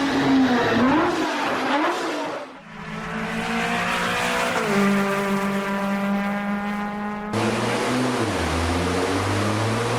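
Sports car engine sound effects spliced together. The engine revs up and down, then runs at a steady note that drops in pitch about halfway through. An abrupt cut brings in another take in which the engine note dips and then climbs again near the end.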